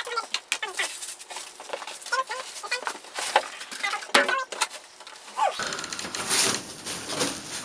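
Packaging being handled: irregular clicks and crackles of plastic and cardboard as computer parts are unpacked. A steady low hiss sets in abruptly near the end.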